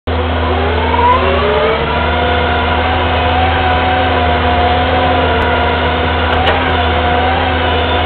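Kubota skid steer's diesel engine running under load while the machine drives and turns with a full bucket of dirt. A whine rises in pitch over the first second or two, then holds steady over a constant low hum.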